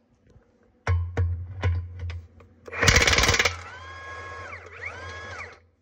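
High-torque cordless impact wrench on a combine dual-wheel lug nut: a few short bursts of the motor, then a burst of loud hammering as the nut breaks loose, then the motor whining freely for about two seconds, its pitch rising and falling with the trigger, as the nut spins off. It stops near the end.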